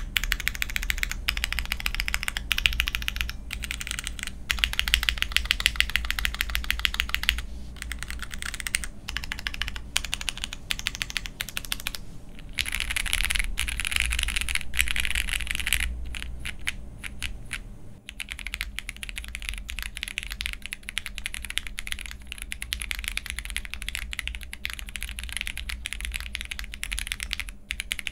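Typing on a jris65 65% mechanical keyboard with Cherry MX Black linear switches, a polycarbonate plate and GMK Retro Muted keycaps: a dense clatter of keypresses in runs with short pauses. About eighteen seconds in, the sound changes slightly as the build with Poron plate foam plus PCB tape gives way to one with Poron plate foam only.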